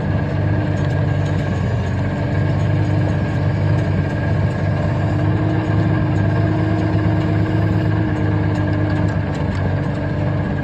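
Engine of the machine powering a 6-inch post-hole auger, running steadily under load while the auger bores a fence-post hole, its pitch wavering slightly, with faint scattered ticks.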